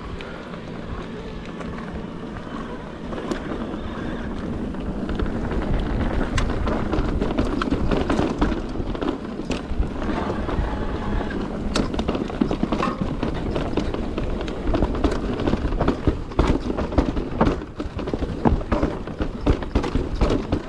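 Mountain bike riding over a rocky, rooty trail: a continuous rumble of tyres over rock and roots with frequent sharp clicks and knocks from the bike rattling, growing louder a few seconds in.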